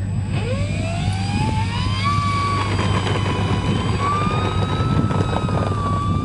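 RC model Pilatus PC-6 Porter's motor and propeller throttling up for a takeoff run. It is a whine that climbs steadily in pitch over the first two seconds, then holds high and wavers slightly, edging up again near the end.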